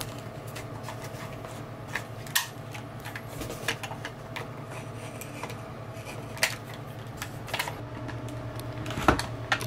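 Irregular light clicks and scrapes of a utility knife being worked against an RV wall panel, with a few sharper clicks about two and a half, six and a half and nine seconds in. A steady low hum runs underneath.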